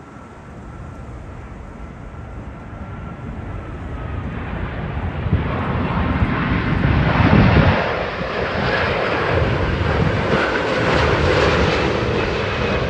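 Airbus A350 airliner's Rolls-Royce Trent XWB turbofan engines on final approach with the landing gear down, passing low overhead. The jet roar grows louder over the first several seconds, peaks about halfway through, and stays loud as the plane goes by, with a faint whine over the top.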